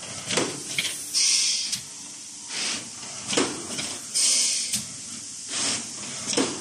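LITAI TTF-520A thermoforming machine cycling about every three seconds: a clunk, then a loud burst of compressed-air hiss, with a shorter, weaker puff of air between the cycles.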